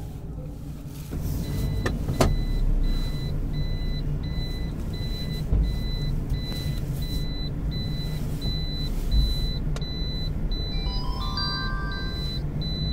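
Vehicle engines running on a ferry's enclosed car deck, the low rumble growing louder about a second in. Over it an electronic warning beeper sounds about twice a second, and a short run of falling chime-like tones comes near the end.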